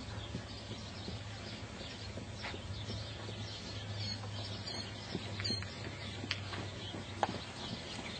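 Faint, irregular hoofbeats of a horse moving on sand arena footing, over a steady low hum. A few bird chirps come about halfway through.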